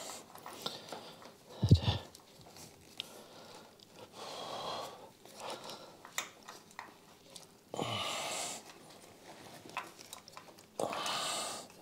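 A man breathing heavily through his nose in several long hissy breaths while working with his hands, with a single hard thump about two seconds in and small clicks of handling in between.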